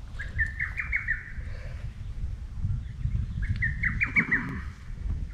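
A songbird singing a short phrase of quick chirping notes, twice, about three seconds apart, over a low rumble of wind on the microphone.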